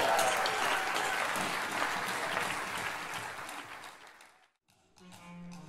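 Theatre audience applauding, the clapping dying away over about four seconds. The sound drops out briefly, and a quieter sound with a steady low tone starts near the end.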